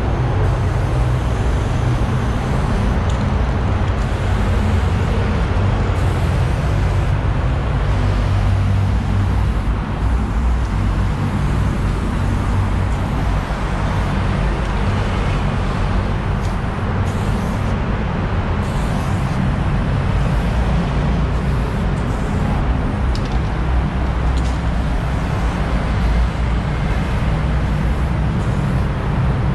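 Aerosol spray-paint can hissing as paint goes onto a concrete wall, over a steady low rumble.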